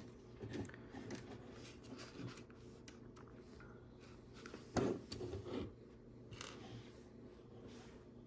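LEGO plastic pieces being handled and pressed together: faint rubbing and scraping with light clicks, the sharpest click about five seconds in.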